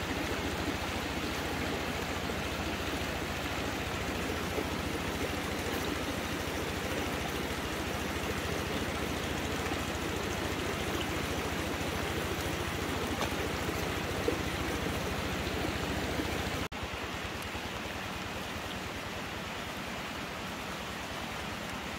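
Steady hiss of water across a flooded rice paddy. About seventeen seconds in it breaks off for an instant and goes on a little quieter.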